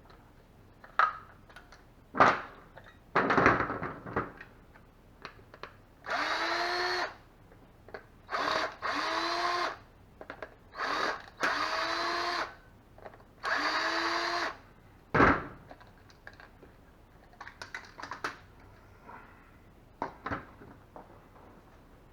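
Small battery-powered motor of a Mojo flicker duck decoy, started and stopped six times in quick succession, each run rising in pitch as it spins up and lasting about a second, with handling knocks and clicks before and after.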